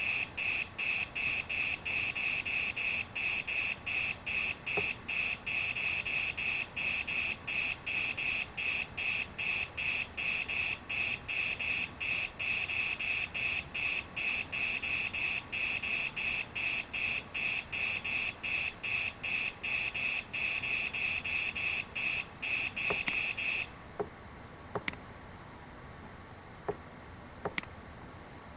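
Regular electronic chirping, about two and a half high-pitched pulses a second, played by the virtual lab software while its simulated Bunsen burner is lit. It cuts off suddenly about 24 s in, and a few sharp mouse clicks follow.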